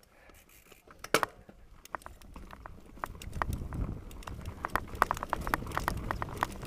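Mountain bike rolling down a loose, rocky trail: tyres crunching over stones and the bike rattling with many sharp clicks and knocks, one loud knock about a second in. A low rumble builds and the clicks come thicker and louder as it picks up speed.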